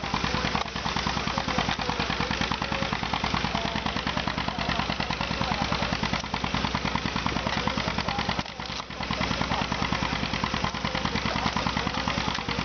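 Belt-driven can crusher powered by a miniature steam traction engine, running with a rapid, even mechanical pulsing. The sound drops briefly about eight and a half seconds in.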